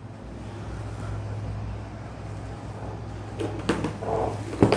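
A few light knocks and clatter of kitchen things being handled, over a steady low hum.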